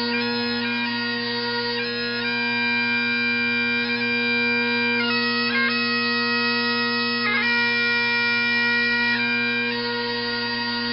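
Bagpipes playing a slow tune, long held melody notes over a steady drone.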